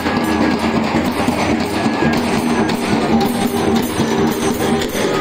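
Loud, fast, steady festival drumming on large stick-beaten barrel drums (dhol), with other pitched music mixed in.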